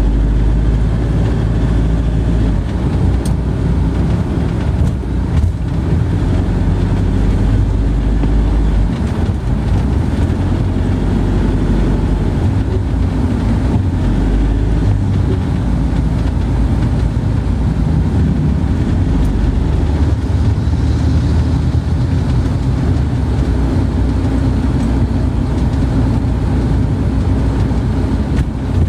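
Steady low rumble of a vehicle, with no breaks or sudden events.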